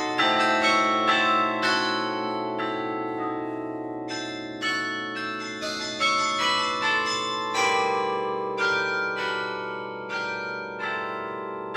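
The carillon bells of St. Rombout's Tower played by hand from the baton keyboard: a melody over chords, notes struck a few times a second, each bell ringing on long and overlapping the next. The notes thin out for a moment about two seconds in, then pick up again.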